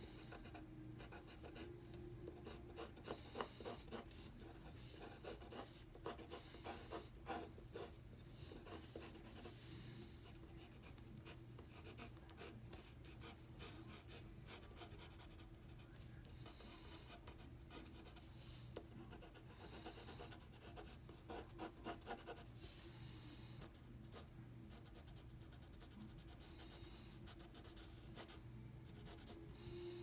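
Pencil scratching across drawing paper in runs of quick, short sketching strokes, with quieter stretches between them.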